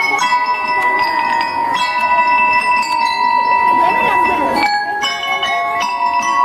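School drum and lyre band playing: bell lyres ring out high, steady notes, one held for several seconds before the tune moves to new notes about four and a half seconds in, over snare and bass drum strokes.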